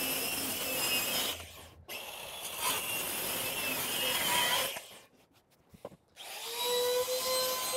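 Small circular saw cutting through the end of a wooden deck board, in two runs with a brief break between. After a short silent pause a small trim router's motor starts, rising quickly to a steady high whine.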